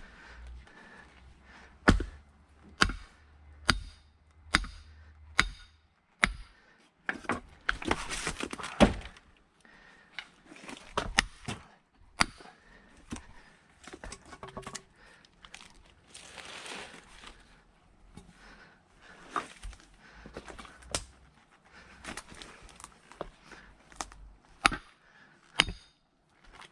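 Firewood being split by hand: a run of five sharp strikes a little under a second apart, then a couple of seconds of cracking and tearing wood. Scattered single knocks follow.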